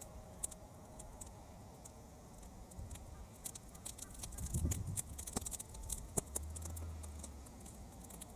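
Sun-dried weeds burning in an open fire, crackling with irregular sharp pops that come thicker about halfway through, over a low rumble of wind.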